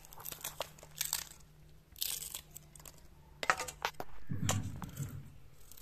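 Kitchen knife slicing fresh green chillies against the thumb into a clay mortar: a few short, crisp snips and clicks. A low rumble lasts about a second near the end.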